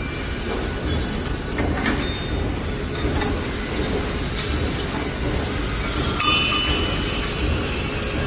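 Steel roller chain clinking and rattling as it is handled and fed onto a sprocket, over a steady workshop background noise; the loudest clink, about six seconds in, rings briefly.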